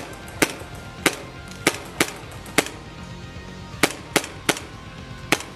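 Airsoft pistol, a WG Sport 331 M9 replica, fired about nine times in an uneven string of sharp pops.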